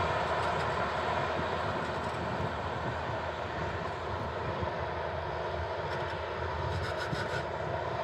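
Steady machinery noise from a Double L 973 potato harvester digging while a ten-wheel truck drives alongside it, diesel engines running with a low rumble.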